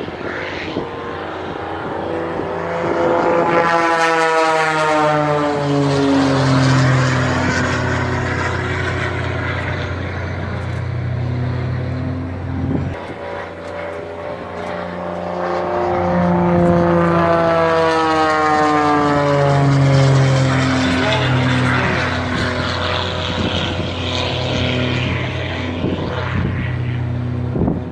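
An airplane's engine drones steadily, passing close by twice, about twelve seconds apart, with the pitch falling as it goes past each time.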